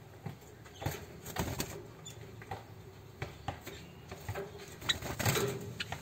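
Java sparrows moving about in a wire cage: irregular light taps and rustles, with a short chirp about five seconds in.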